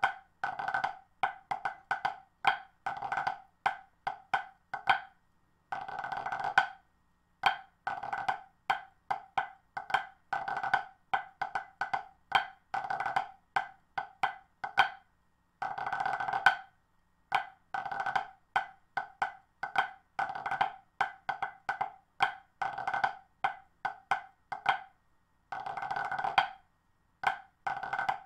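Drumsticks striking a rubber practice pad, playing a pipe band snare drum score in 3/4 at tempo. Quick rhythmic groups of crisp taps are broken every few seconds by short rolls lasting under a second.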